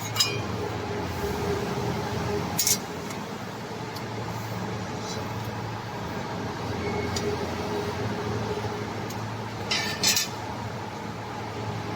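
A 125-ton CNC press brake runs with a steady machine hum. Short sharp metallic clinks come about a quarter second in, near three seconds, and twice close together around ten seconds.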